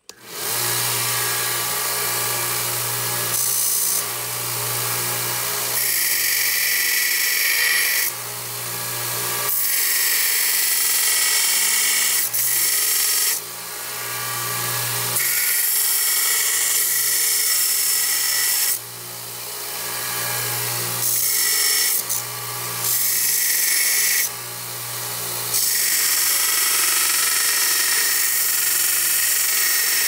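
A small bench belt sander runs with a steady motor hum while a high-carbon steel knife blade is ground on its narrow belt to put in the bevels. The grinding hiss swells and drops again and again as each pass of the blade starts and stops.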